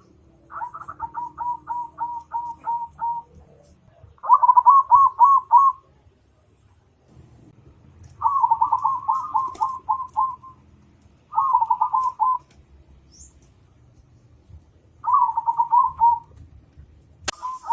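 A bird calling in repeated phrases, each a quick run of short notes lasting one to three seconds, with pauses of a second or more between phrases. A sharp click sounds near the end.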